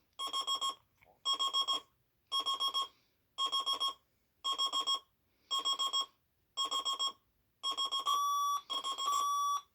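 Emerson alarm clock beeping in bursts of four quick beeps, about one burst a second. Near the end a second alarm clock, the Sharp, joins with a steadier, slightly higher-pitched tone.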